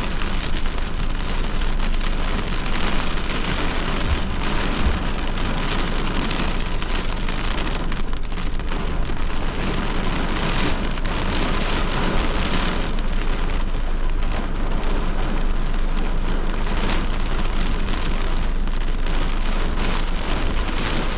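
Heavy thunderstorm rain falling as a steady, dense hiss.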